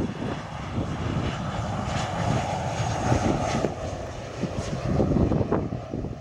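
Airliner engines running at an airport: a rushing noise that swells about a second in and fades away after about four seconds, with gusty wind rumble on the microphone throughout.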